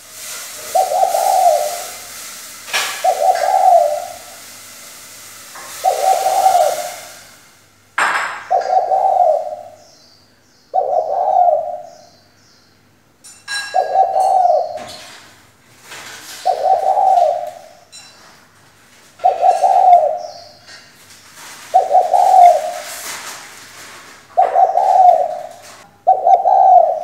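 Female spotted dove cooing over and over, each low coo phrase about a second long, repeated about every two and a half seconds. This is the female's call that keepers play or use as a lure to stir male spotted doves into calling.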